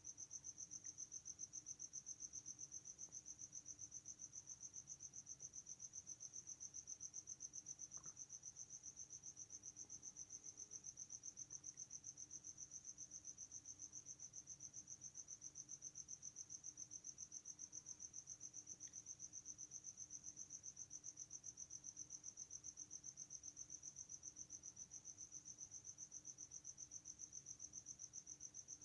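Faint, continuous high-pitched trill of a cricket, pulsing rapidly and evenly without a break, over a faint low steady hum.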